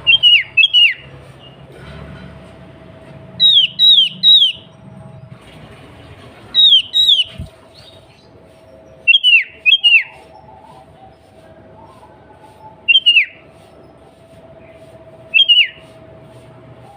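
Sooty-headed bulbul (kutilang) calling: short clusters of two or three loud, sharply falling whistled notes, repeated about every three seconds, over a faint steady hum.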